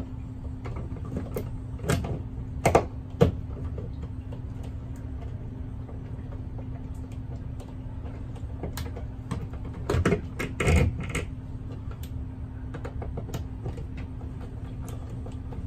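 Screwdriver driving the metal mounting screw of a GFCI outlet's strap into the electrical box: scattered small metallic clicks and scrapes, loudest about two to three seconds in and again around ten to eleven seconds, over a steady low hum.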